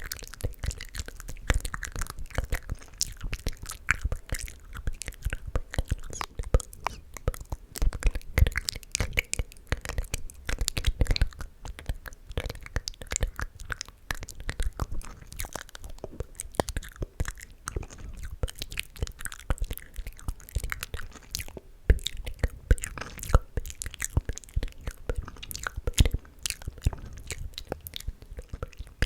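Close-miked ASMR mouth sounds: a rapid, irregular run of wet clicks, smacks and pops.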